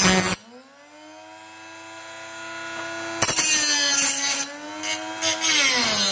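VonShef electric knife sharpener grinding steel off a santoku blade drawn through its slot. The grinding stops a moment in, leaving the motor's steady whine as it spins back up, then starts again about three seconds in and runs on, the motor's pitch dropping under the load.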